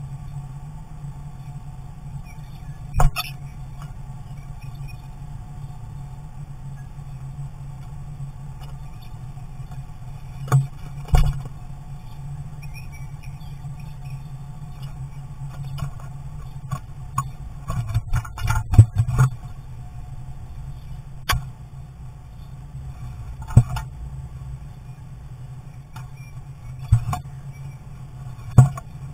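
Sharp knocks and taps from a starling at the birdhouse entrance hole, about ten of them at uneven intervals with a quick cluster just past the middle, over a steady low hum.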